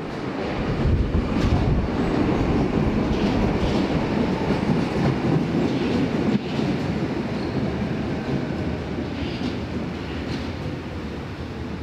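Berlin U-Bahn train running on the track, with a dense rumble and its wheels clacking over rail joints a few times; the sound comes up sharply at the start, then slowly dies away over the second half.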